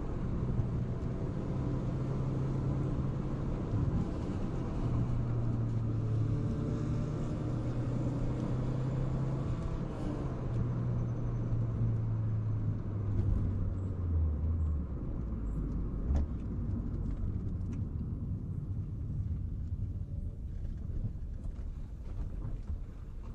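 Car engine running with a low, steady note that shifts in pitch a few times, drops lower about halfway through and then fades away over the last several seconds.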